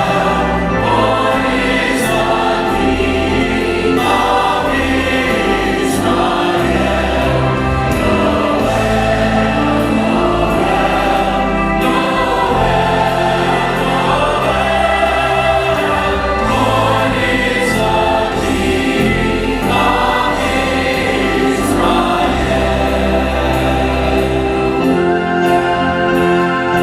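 Church choir singing a Christmas anthem over instrumental accompaniment, with long-held deep bass notes under the voices.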